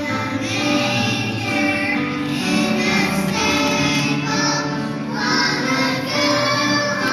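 A choir of young children singing together, with music under the voices.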